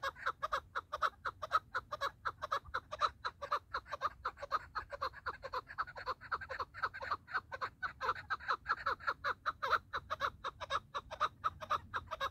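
Chukar partridge calling: a fast, unbroken run of clucking chuck notes, several a second.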